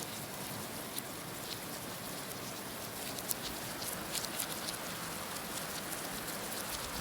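Heavy rain falling steadily: an even hiss dotted with many small, sharp drop ticks.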